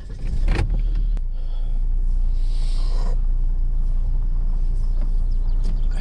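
Car running, heard from inside the cabin: a steady low rumble of engine and road noise that sets in about half a second in, just after a short knock.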